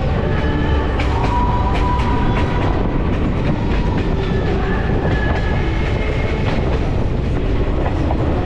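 TAZARA Mukuba Express passenger train rolling along, heard from beside a coach: a steady loud rumble of wheels on rails with scattered clicks over the rail joints.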